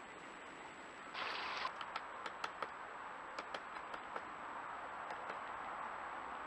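Steady rush of a small stream over rocks, with a dozen or so sharp, irregular ticks from a great spotted woodpecker over it. Before that, about a second of faint camera-trap hiss.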